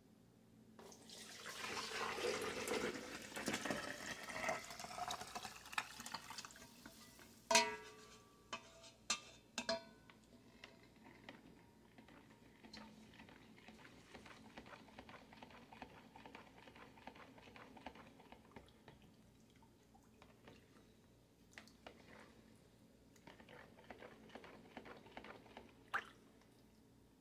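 Milk mixture poured into a plastic pitcher for about six seconds, the pour rising in pitch as the jug fills. A few knocks follow, then a plastic spoon faintly stirring and scraping in the milk.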